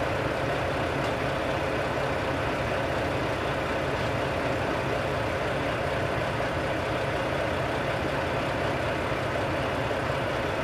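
Tractor-trailer's diesel engine running steadily, heard from inside the cab, while its air compressor builds brake air pressure from 85 to 100 psi.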